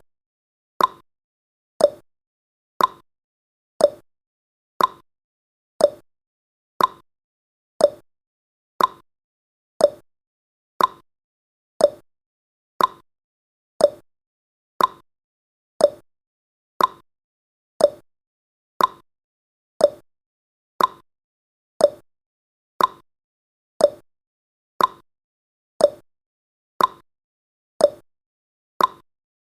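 Clock-ticking sound effect of a countdown timer: one short click each second, alternating between a lower tick and a higher tock.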